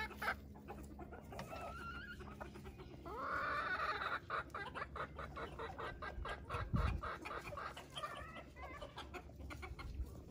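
A flock of blue and black Ameraucana chickens clucking, with scattered short calls, a longer rising-and-falling call about three seconds in and a run of quick calls near the end. A brief low thump comes about seven seconds in.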